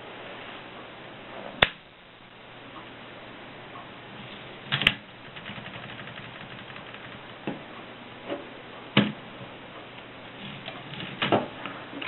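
Vintage Voss typewriter mechanism giving single sharp clacks a few seconds apart, then a short quick cluster of clacks near the end.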